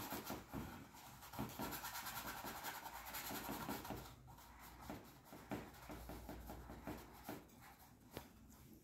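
Bristle brush scrubbing oil glaze onto a canvas: faint, scratchy strokes, close together for the first few seconds and then sparser.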